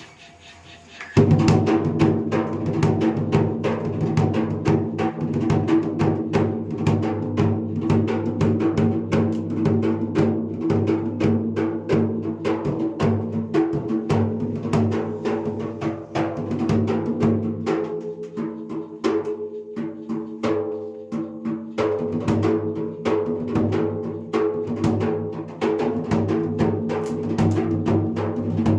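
Dhola (two-headed barrel drum) being played in a fast, dense stream of strokes, with steady sustained tones underneath; it starts suddenly about a second in, being sound-checked after repair.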